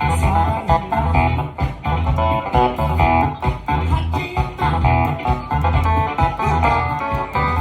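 Instrumental funk-rock band music: a keyboard played with a choppy, plucked-sounding clavinet tone over a bass line and a steady drum beat.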